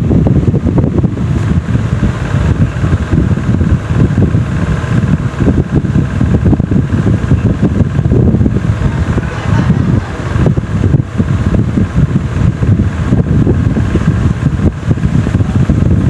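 Loud, steady low rumble of moving air buffeting the microphone, fluttering unevenly throughout.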